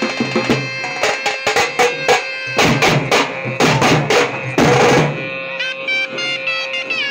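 A troupe of drums with metal shells, beaten with sticks in a loud, uneven folk rhythm for a Veeragase dance. The strokes come thickest and loudest from about two and a half to five seconds in. A shrill wind instrument holds long notes over the drumming, bending in pitch near the end.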